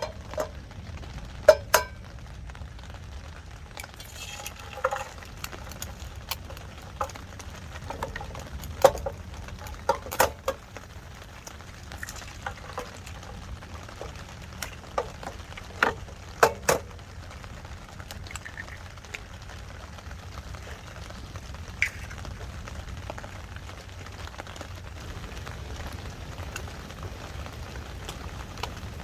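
Cooking sounds: a dozen or so sharp clinks and knocks of utensils against dishes and pots, mostly in the first half, over a steady low hiss.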